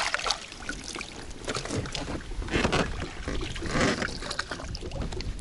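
Irregular knocks, clatter and rustling of gear being handled and set in place in a small boat, over a low rumble of wind on the microphone.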